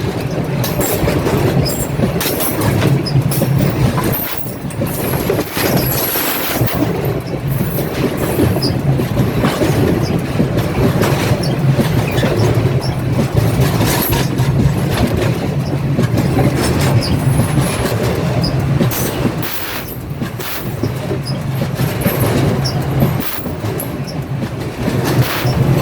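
Loaded freight train rolling directly over the camera: a loud, continuous rumble of steel wheels on rail, with repeated clacks as the wagons' wheelsets pass overhead.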